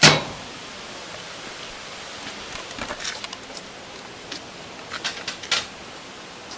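Steady hiss of rain. A single loud knock comes right at the start, and a few lighter clicks and knocks follow later.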